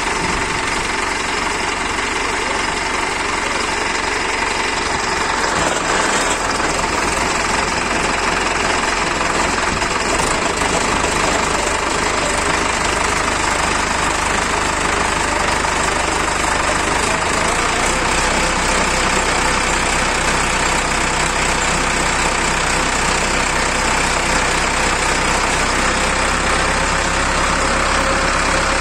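Tractor engine running steadily while driving a tractor-mounted post-hole auger that bores into the soil, the engine note shifting slightly as the auger works deeper.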